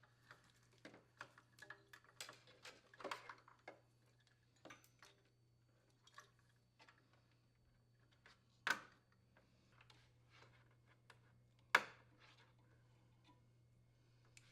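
Faint handling noise and small clicks, with two sharper snaps near 9 and 12 seconds in, as the new power cord's plastic wire retainers are pressed into the refrigerator's metal frame.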